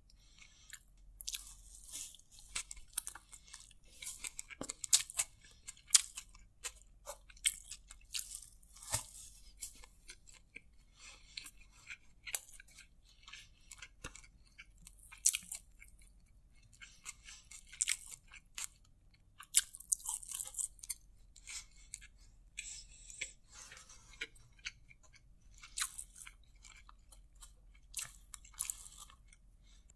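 Close-miked eating sounds: fingers picking through and mixing boneless chicken biryani in a paper takeaway box, with chewing, heard as irregular sharp crackles and clicks.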